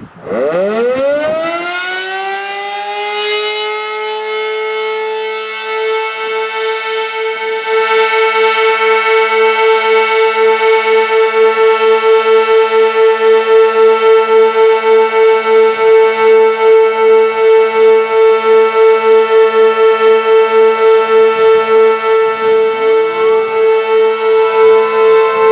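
Sentry 16V1T-B tornado siren winding up from rest to full speed in about two seconds, then holding a steady full-alert tone with a fast, even throb in level. A second siren begins winding up underneath it near the end.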